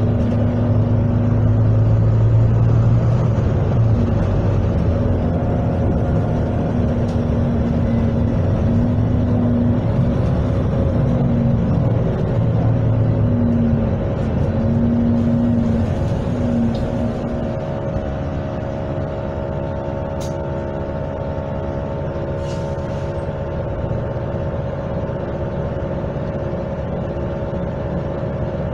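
Volvo B9TL double-decker bus heard from inside the saloon: its six-cylinder diesel engine and drivetrain drone steadily as the bus travels. The drone is stronger for about the first seventeen seconds, then settles to a quieter, even hum as the bus cruises, with road noise and an occasional light rattle.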